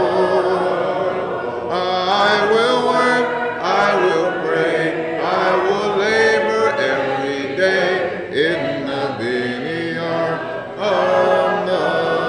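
Voices singing a hymn a cappella: a congregation led by a male song leader, the sung line carrying on without a break.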